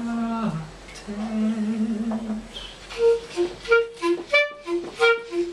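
Free-improvised violin and clarinet duet. First come long low held notes with a short downward slide. From about three seconds in, quick detached notes hop back and forth between two pitches.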